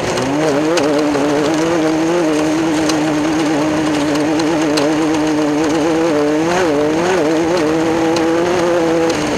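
Class 10 off-road race car's engine running hard at a steady high pitch that wobbles constantly, with a brief dip and re-rise in revs about six and a half to seven seconds in.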